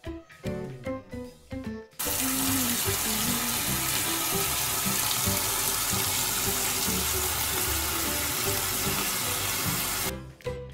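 Water running from a tap, starting suddenly about two seconds in as a steady, loud rush and shutting off abruptly near the end, over light background music.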